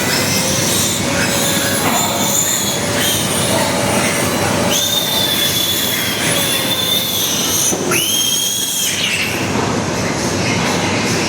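Piglet squealing loudly and without a break while its teeth are being clipped, a distress scream, with two long, high, held squeals in the second half.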